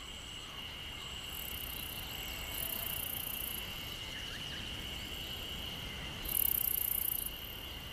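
Forest insect chorus: a steady high-pitched drone, with very high buzzing calls swelling in three times, loudest near the end.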